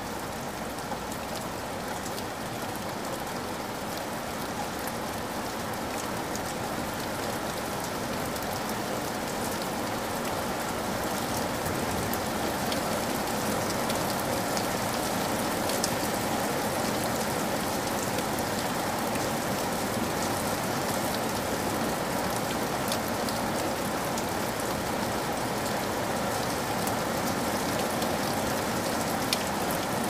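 Heavy rain pouring steadily and splashing on a wet surface, with a few single drops ticking out above the hiss. It grows somewhat louder over the first ten seconds or so, then holds even.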